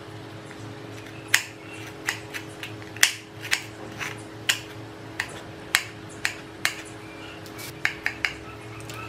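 Chef's knife chopping on a wooden cutting board, about a dozen sharp, irregular knocks as it cuts through lemongrass and other aromatics, with a faint steady hum underneath.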